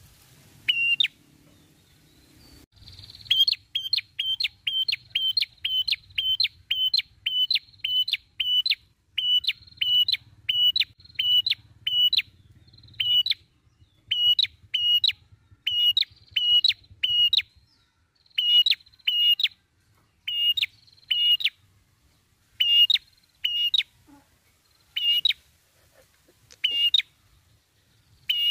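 Red-headed prenjak, an ashy tailorbird, calling: a long run of short, sharp, high notes about three a second, turning to more spaced-out notes with short breaks after about thirteen seconds.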